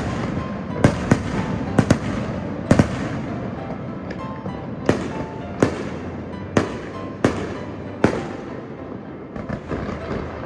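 Aerial fireworks shells bursting in a display: a string of sharp bangs, roughly one a second, over a steady noise. The bangs thin out and grow weaker near the end.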